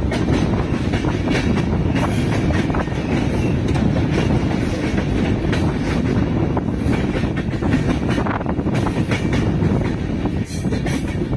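Indian Railways express passenger train running at speed, heard from aboard the coach: a steady rumble of wheels on the rails, broken by irregular clattering clicks over the track.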